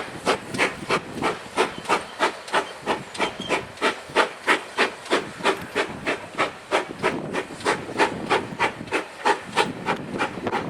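Steam locomotive exhaust beating steadily, about three sharp chuffs a second.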